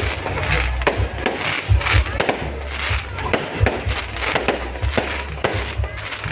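Aerial fireworks going off in quick, irregular succession: sharp bangs and crackles, several a second, over a continuous low rumble.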